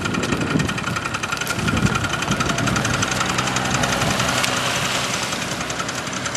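Small moped engine idling with a fast, even putter.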